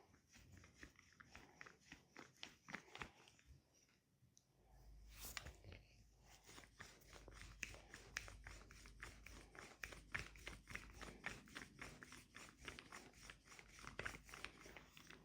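Hands massaging a bare leg: quiet, dense, irregular clicks and crackles of palms and fingers working over the skin.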